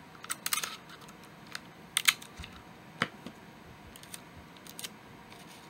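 Small crackling clicks of clear adhesive tape being pulled off a roll and torn into pieces, in scattered handfuls, the loudest about two seconds in and another near three seconds.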